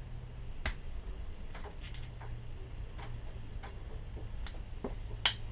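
Small metal clicks of a Victorinox SwissChamp pocket knife's folding tools being handled and snapped against their springs: a sharp click about half a second in, scattered lighter ticks, and a loud click near the end.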